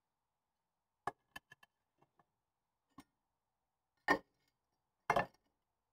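Steel brake pipe brackets handled and set down on a wooden workbench: a few small clicks, then two louder dull knocks in the second half.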